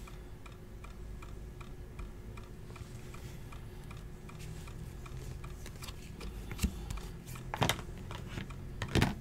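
Trading cards handled and flipped through by hand, with a few sharp card clicks in the second half. Under it runs a faint, steady ticking about four times a second.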